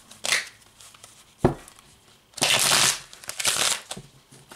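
A tarot deck being shuffled by hand: a single knock about a second and a half in, then two short bursts of card shuffling.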